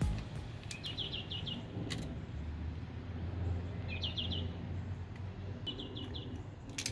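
A small bird chirping outdoors: three short, quick trills of four or five high notes each, over a faint low hum. A few sharp clicks from a camera and small flexible tripod being handled, the loudest near the end.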